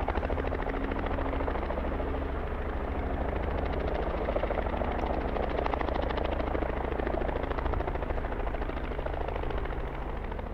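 Robinson R44 helicopter touching down and sitting on its skids with its two-blade main rotor turning and its six-cylinder Lycoming piston engine running: a steady, rapid rotor beat over the engine's drone, fading near the end.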